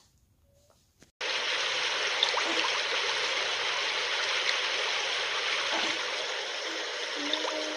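Near silence for about a second, then a steady rushing whoosh of a womb-sound white-noise track played from a phone, with a faint pitched tone joining near the end.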